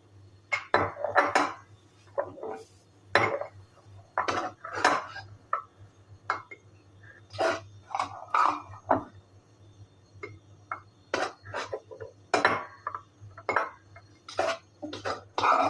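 Kitchen utensils and dishes clattering and scraping irregularly, in short uneven knocks during food preparation.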